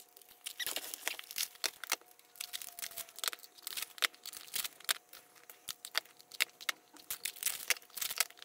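Plastic shrink-wrap crinkling and tearing as it is peeled off a boxed CD album, a quick run of sharp crackles, with the album boxes being handled.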